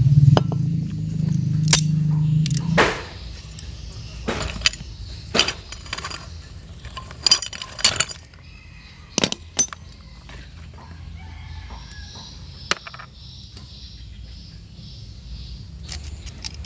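A steady low machine hum stops suddenly about three seconds in. It is followed by scattered sharp metal clinks and taps, like small carburetor parts and tools being handled.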